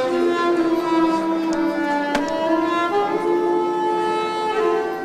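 Soprano saxophone playing a slow melody of long held notes that change pitch every second or so, starting right at the beginning.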